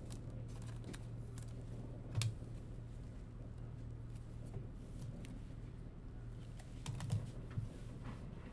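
Stiff chromium trading cards being flipped through by hand, giving faint scattered clicks and snaps, a sharper one about two seconds in and a small cluster near the end. A steady low hum runs underneath.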